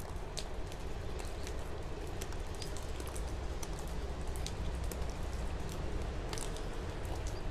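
Irregular small crackles and ticks of soil crumbs and dry roots as a thin root pick combs old soil out of a Dracaena marginata's root ball, with loosened soil pattering down, over a steady low background hum.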